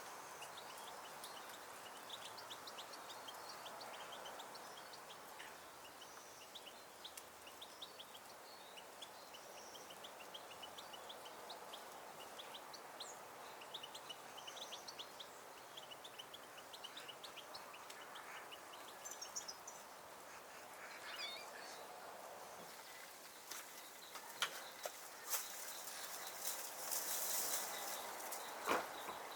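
Small songbirds chirping: many short, faint chirps over a steady background hum. Near the end come a few sharp clicks and louder rustling bursts.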